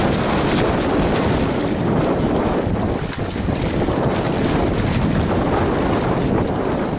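Strong wind rumbling on the microphone over the sound of sea waves.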